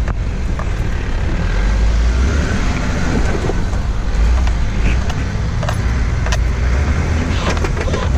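A Jeep's engine running as it drives an off-road trail: a steady low rumble under a wash of noise, with scattered short knocks and rattles.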